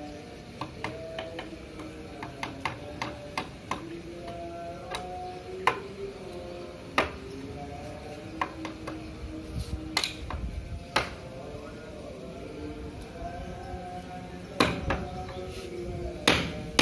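Claw hammer tapping nails into a wooden frame: many light, irregular taps, with a few harder blows about ten seconds in and again near the end.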